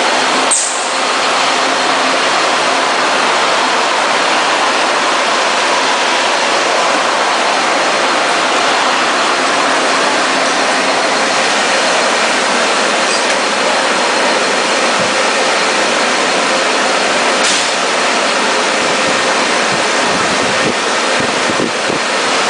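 Shrink-wrap packaging machine running: a steady, loud noise like blowers and conveyor, with a sharp click about half a second in and another near the end.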